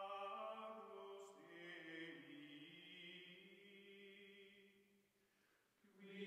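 Faint background music: a chant-like chorus of voices on long held notes that shift slowly in pitch, fading out about five seconds in and starting again near the end.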